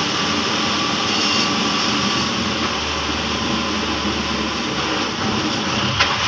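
Rusi (Belarus) 520 tractor's diesel engine running hard under heavy load as it pulls a trailer stacked with steel bars, a steady dense drone. A single sharp knock sounds near the end.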